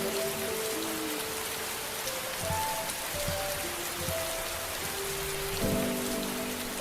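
Steady rain falling, a constant even hiss, with soft ambient music of slow, held notes over it.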